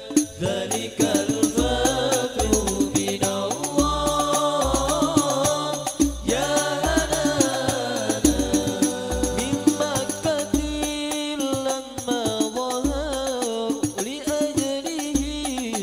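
Male voices singing a devotional melody in unison, backed by hand-played frame drums (rebana) with jingles and a deep drum thumping steadily on the beat.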